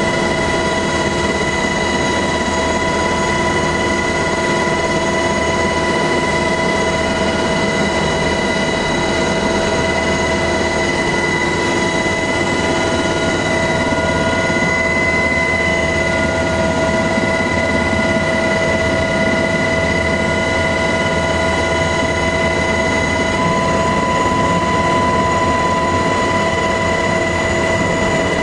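MH-60S Knighthawk helicopter in flight, heard on board: the twin turboshaft engines and rotor drive make a loud, steady drone with several high, steady whining tones over it.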